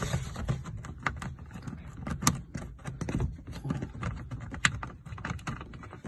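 Irregular small clicks and taps of a bolt being unscrewed by hand from a car door's plastic trim, a few sharper clicks standing out, over a low rumble.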